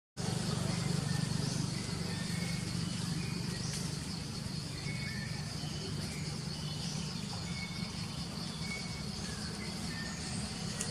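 Forest ambience: a steady high-pitched insect drone with short bird chirps repeating every second or so, over a steady low hum.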